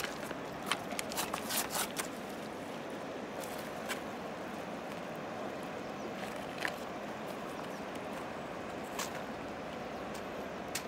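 Steady rush of river current flowing over rocks, with a quick run of sharp clicks and knocks in the first two seconds and a few single ones later.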